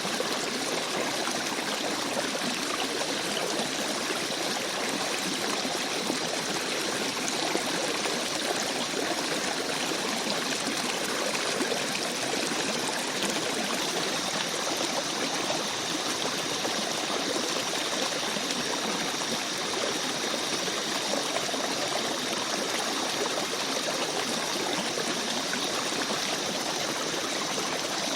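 Babbling forest brook: water flowing steadily in a gentle stream.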